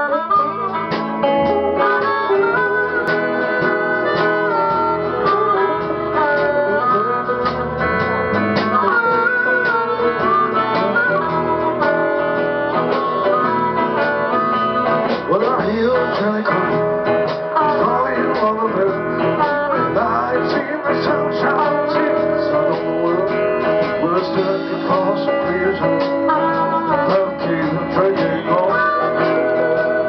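Live blues band playing an instrumental passage on harmonica, resonator guitar and electric guitar, the harmonica bending its notes over the guitars.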